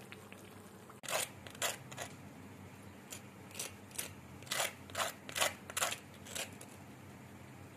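Steel fork tines scraping across the crisp fried crust of an aloo tikki (potato patty): about a dozen short, scratchy crunches over some five seconds, showing how crisp the crust has fried.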